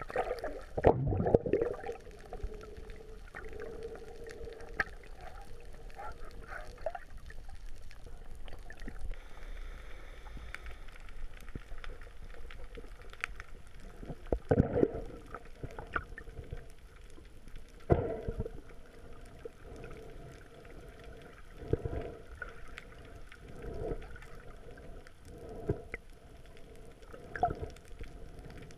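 Underwater sound picked up through a waterproof camera housing: a low, muffled water rush with dull knocks and thumps every few seconds, the loudest about a second in and near the middle.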